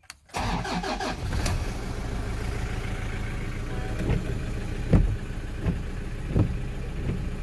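Toyota's engine starting and settling into a steady idle. From about four seconds in there are short regular knocks about every 0.7 s as the windscreen wipers sweep the wet glass.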